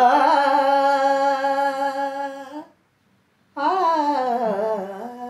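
A man singing a ghazal unaccompanied: a long, steady held note, then after a short break a second phrase that dips and wavers in pitch, in the ornamented style of an alaap.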